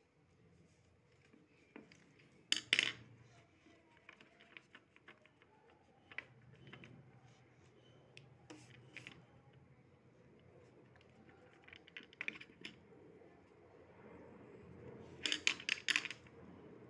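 Rubber eraser rubbing on drawing paper over a wooden desk, with a few sharp clicks of small objects knocking on the desktop. The loudest is a quick cluster of clicks near the end.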